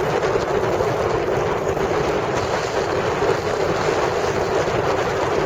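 Wind buffeting the microphone of a camera riding on a moving bicycle: a steady, even rush with no breaks.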